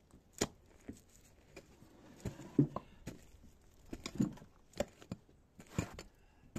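A long-handled hand tool striking and breaking up rotten railway sleeper timber and soil: irregular dull knocks, about half a dozen hits, with crumbling and scraping between them.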